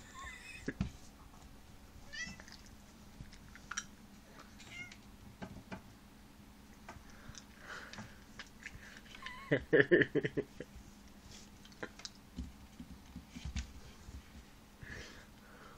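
Domestic cat meowing in short calls several times, with scattered clicks and knocks as it paws and scrambles on a wooden shelf. A burst of thumps about ten seconds in is the loudest sound.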